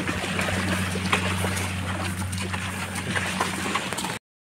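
Carabao-drawn cart moving along a muddy, grassy track: a steady low rumble with scattered knocks, creaks and squelches from the cart and the animal's steps. The sound cuts off abruptly near the end.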